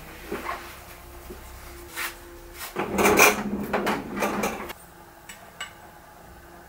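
Wooden boards and jig parts being handled on a table saw top: a few light knocks, then about two seconds of wood clattering and scraping, then a couple of light clicks.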